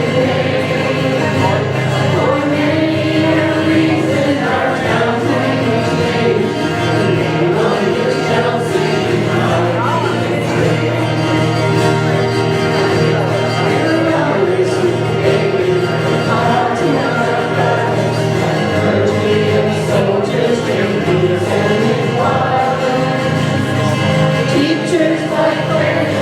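Music: a group of voices singing together with instrumental accompaniment underneath.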